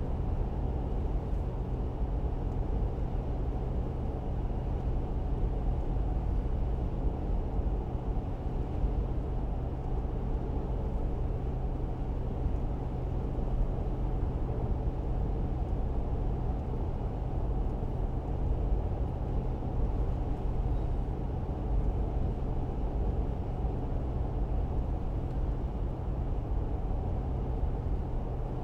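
A car driving steadily: an unchanging low rumble of engine and road noise with a constant low hum.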